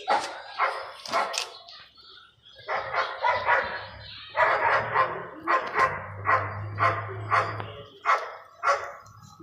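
A dog barking repeatedly, short barks coming about two a second in the second half.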